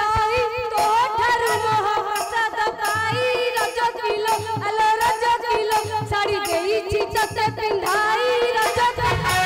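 Live music accompanying a folk-theatre dance: a melody line that wavers and slides in pitch over a steady, quick drum beat.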